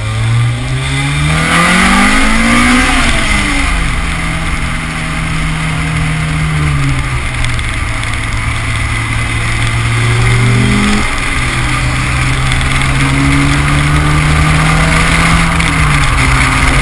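Honda Civic four-cylinder engine pulling through a gear, its pitch rising for about three seconds, then dropping at the shift and running at cruise with small changes in pitch. Wind and road noise rush steadily over the outside-mounted microphone.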